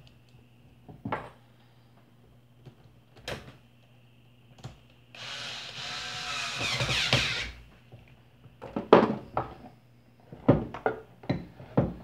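Metal parts of an electric fan motor being handled and fitted together during reassembly: a few scattered clicks, a rasping scrape lasting a couple of seconds in the middle, then a quick run of knocks and clunks near the end.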